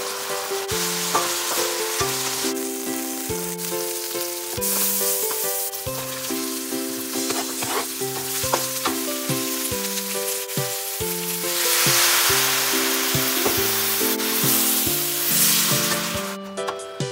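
Food sizzling in a hot wok as beef strips and then sliced zucchini are stir-fried with a spatula. The sizzle grows louder in the second half and cuts off shortly before the end. Background music with a plucked melody plays throughout.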